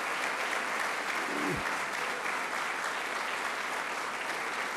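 Audience of many people clapping steadily.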